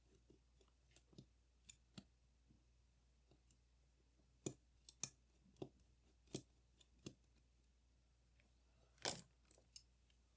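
Small metal clicks and taps, irregular and widely spaced, from tools and small parts being handled while a Leica IIIF rangefinder camera is taken apart; the loudest tap comes near the end.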